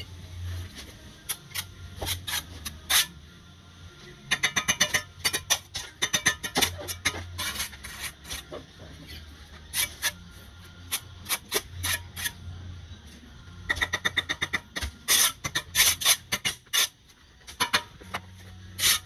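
Steel brick trowel tapping and scraping on bricks and mortar as bricks are bedded and knocked down to line. Runs of quick, sharp taps come about four seconds in and again from about fourteen to seventeen seconds.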